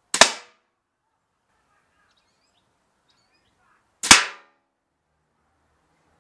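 Two sharp, short cracks about four seconds apart from an 80 lb Hori-Zone Redback pistol crossbow shooting bolts at a thin metal tray.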